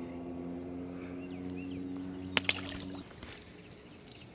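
A distant motor running steadily, a drone of several low pitches that cuts off about three seconds in. A sharp click, the loudest sound, comes just before it stops, with faint bird chirps above.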